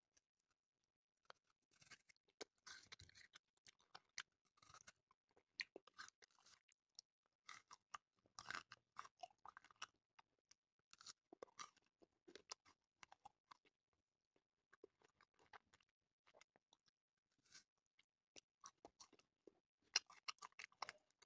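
Close-up mouth sounds of someone wearing braces eating frozen ice cream bars: quiet bites, crunching and wet chewing heard as irregular clusters of sharp crackles and clicks, with short pauses between.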